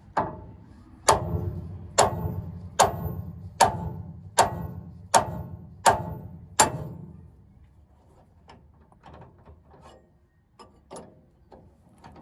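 Hammer blows on a steel pickle fork wedged between the drag link and the Pittman arm, driving it in to separate the joint. Nine loud ringing metal strikes come a little under a second apart, then stop about seven seconds in, leaving only a few faint light knocks.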